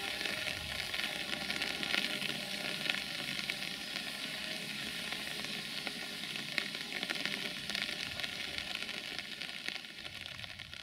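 Steady rain hiss with the crackle of many small drops, fading out near the end.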